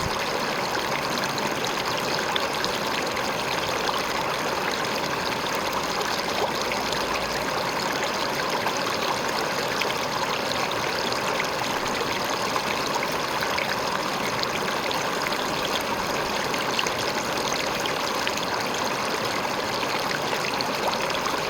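River water flowing and splashing over a rock, a steady rushing babble.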